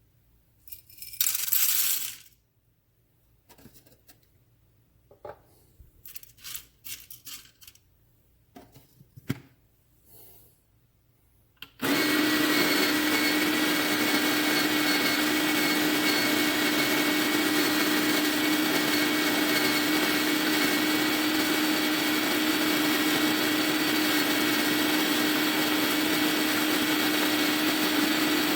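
A few clicks and a short rattle, then about twelve seconds in the Fellow Opus electric conical burr grinder's motor starts and runs steadily, grinding coffee beans with an even whir and a steady hum.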